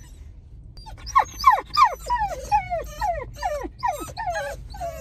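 Whippets whining, a run of high whines at about three a second, each falling in pitch, starting about a second in. It is separation distress: the dogs are crying for an owner who has left them.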